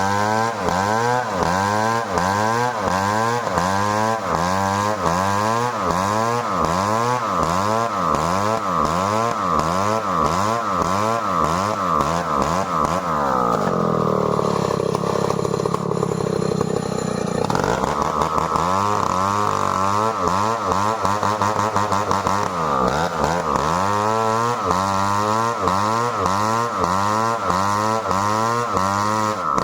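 Stihl 070 two-stroke chainsaw cutting merbau hardwood under load, its engine speed rising and falling about twice a second. Roughly halfway through, the revs drop for a few seconds, then the saw picks back up and carries on cutting.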